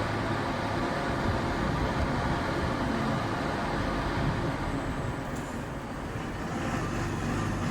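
Library gas boiler's flue system giving out a constant low drone, a steady hum over a wash of noise. This is the noise neighbours complain of as intrusive.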